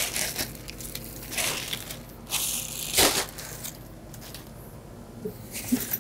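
Clear plastic packaging wrap crinkling and rustling in irregular bursts as it is crushed and stuffed into a plastic garbage bag, loudest about halfway through, then quieter.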